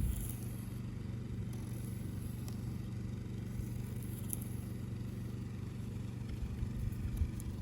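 Propane-converted Honda 2200 generator running steadily: a constant low engine hum.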